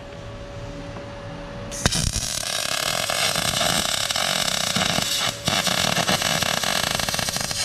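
Wire-feed (MIG) welding arc crackling with a steady hiss as steel is welded. It starts abruptly about two seconds in and breaks off briefly around five seconds before the bead resumes.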